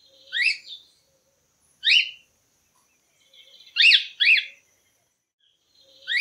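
Cockatiel calling: short, sharp upward-sweeping chirps, one near the start, one at about two seconds, a quick pair around four seconds, and another at the end.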